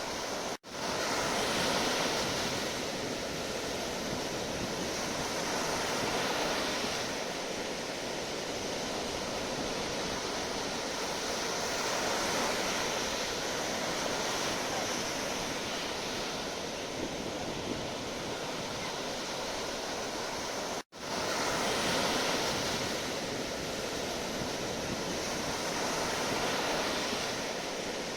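Sea waves washing onto the shore: a steady rushing surf that swells and eases every few seconds. The sound drops out for an instant twice, once near the start and once about two-thirds of the way through.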